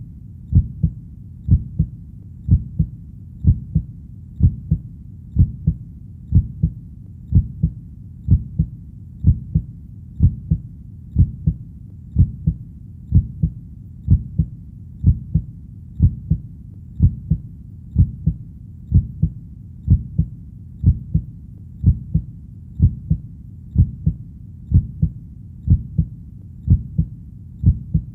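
Heartbeat, steady and even: a pair of low thumps (lub-dub) repeating a little under once a second over a faint low background rumble.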